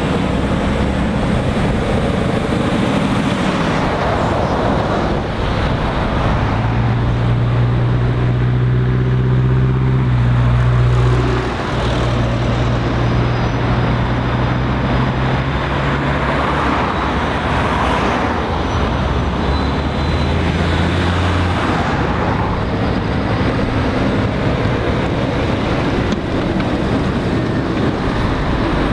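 Road traffic on a roundabout: heavy lorries and cars pulling round and past with steady tyre and engine noise. A lorry's deep diesel drone holds for about ten seconds in the middle, broken briefly partway, and a shorter engine drone follows later.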